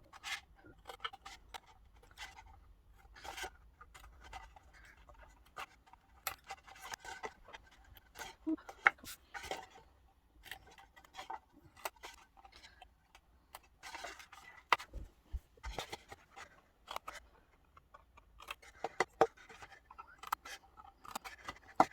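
Card and paper being handled during papercraft assembly: scattered short rustles, taps and scrapes at an uneven pace.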